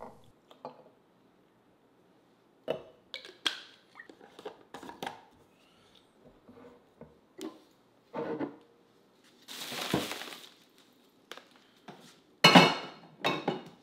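Glass mason jars of juice being capped and handled: scattered clinks and knocks of glass and lids, a short hiss about ten seconds in, and louder knocks near the end as a jar goes into the refrigerator.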